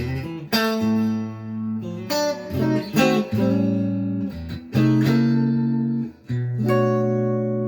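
1965 Fender Stratocaster electric guitar played with a clean tone through a Roland Cube 40XL amp: a run of picked chords, each left to ring out before the next.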